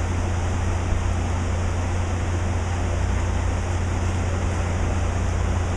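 Steady low mechanical hum under an even hiss of background noise, with no distinct events.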